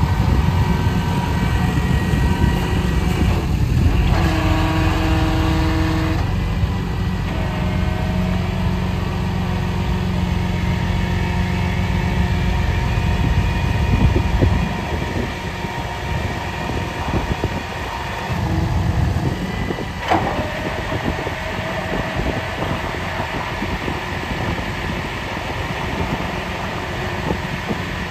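Wrecker tow truck running while its hydraulic boom is raised from the rear control levers: a steady engine drone with hydraulic whines that come and go in the first several seconds. The sound eases down a little after about fourteen seconds, and there is a single sharp clunk about twenty seconds in.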